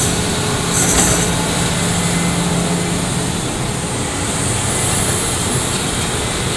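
Sany SY365H excavator's diesel engine running steadily under load as the machine works mud. Its steady engine tone eases about three seconds in, and a short high hiss comes about a second in.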